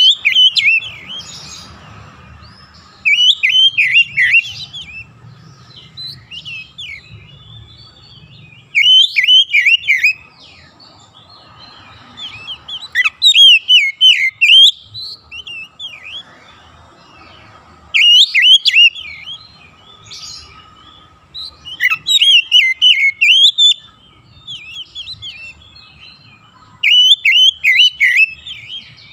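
Oriental magpie-robin singing loud, rapid phrases of whistled notes that slide up and down, about seven phrases each lasting a second or two, separated by pauses of a few seconds.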